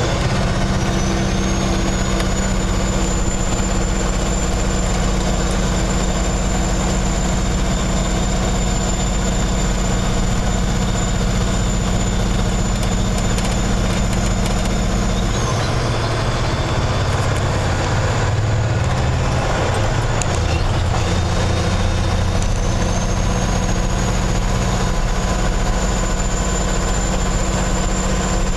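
Kenworth semi truck's diesel engine running under way, heard from inside the cab, with a steady low drone. A high whine builds just after the start, cuts off about halfway as the engine note changes, and builds again a few seconds later.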